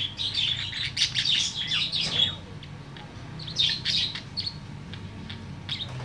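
Budgerigar warbling: rapid high chirps and chatter for about two seconds, a pause, another short burst, then a couple of chirps near the end. A low steady hum runs underneath.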